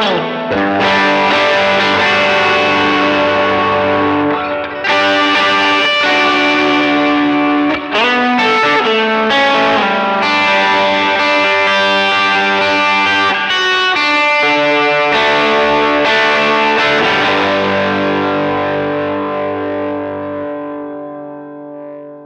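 Electric guitar played through a Very Good Amp Co EP Drive overdrive pedal, playing overdriven chords. Near the end a last chord is left to ring and fades away.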